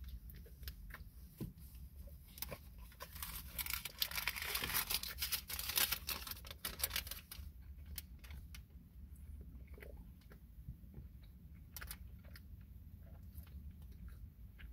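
A man chewing a mouthful of steak and cheese wrap close to the microphone, with many small wet clicks. The chewing is busiest from a couple of seconds in to about halfway, then slows to scattered clicks. A steady low hum runs underneath.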